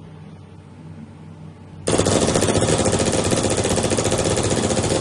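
Three-head CNC router machine running with a fast, even mechanical rattle. It is much quieter for the first two seconds, then comes back loud suddenly about two seconds in and keeps going.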